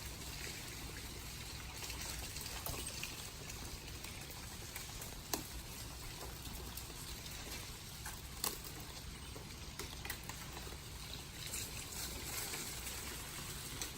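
Faint, steady trickle of running water, with three soft ticks spread through it.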